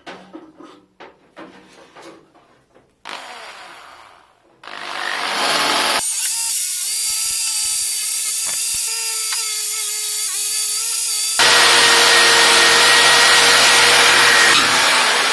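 A few knocks and clicks of handling, then a power tool spinning up and running with a high whine, changing abruptly to a louder, harsher grinding about two thirds of the way in: power tools sanding and grinding back rust and old filler on steel car bodywork.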